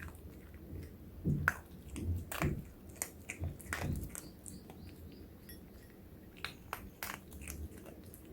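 A Pomeranian eating, chewing and crunching its food in irregular bites, most often in the first four seconds and sparser after.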